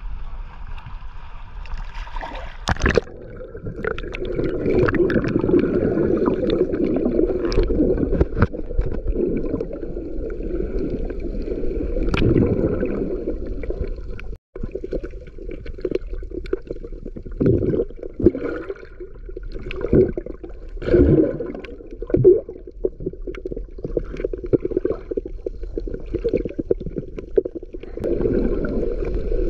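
Muffled water sloshing and gurgling, heard from inside a sealed GoPro waterproof housing while snorkeling, with scattered knocks and splashes.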